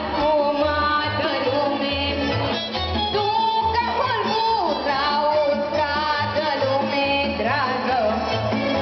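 Romanian folk song for a round dance: an ornamented, sliding melody over a steady, regular bass beat.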